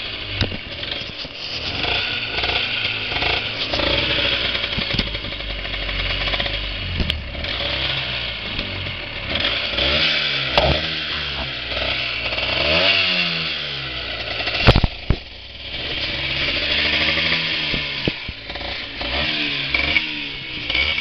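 Honda NSR125's two-stroke single-cylinder engine running and being revved again and again, the pitch rising and falling with each blip of the throttle. It revs up clean. A single sharp knock comes about two-thirds of the way through.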